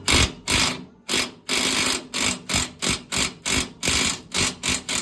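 Hand ratchet wrench clicking in quick back-and-forth strokes, about three a second, tightening a leaf-spring shackle bolt; it stops abruptly at the end.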